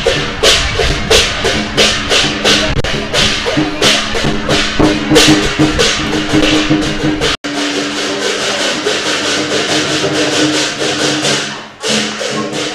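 Chinese lion dance percussion music: drum and cymbals beating a fast rhythm of about three strikes a second over a few sustained tones. The audio cuts off abruptly about seven seconds in, resumes as a dense cymbal-heavy wash, then dips and restarts just before the end.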